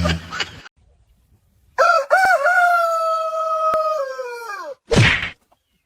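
An animal call: one long drawn-out cry, wavering at the start, held on one pitch for about three seconds and falling away at the end. A short loud squawk follows a moment later.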